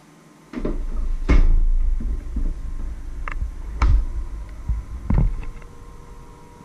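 Handling noise as the camera is moved: a low rumble that starts about half a second in, with about five knocks and clunks, and fades out near the end.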